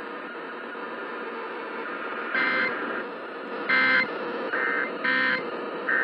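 AM radio reception through a small radio speaker: steady hiss with a faint constant whine, broken by five short bursts of buzzy two-tone warble, each about a third of a second long, spaced roughly a second apart.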